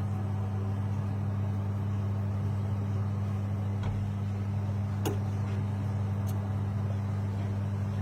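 A steady low hum of a running machine, unchanging throughout, with a few faint clicks.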